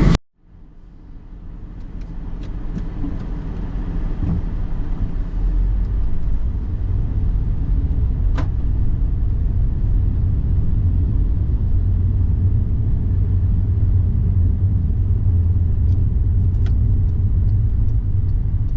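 Car driving, heard from inside the cabin: a steady low road and engine rumble that fades in over the first few seconds, with a few faint clicks.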